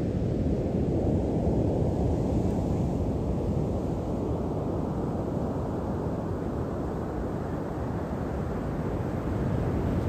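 Pacific Ocean surf breaking on a sandy beach: a steady low rumble of waves, with a brighter hiss building in the second half as a sheet of foam washes up the sand.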